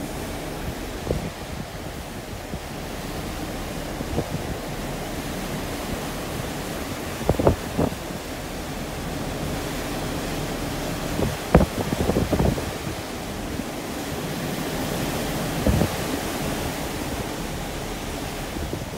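Steady rush of wind and sea water churning along the hull of a moving ferry, with wind buffeting the microphone. Several brief thumps are scattered through it, the loudest about seven and eleven seconds in.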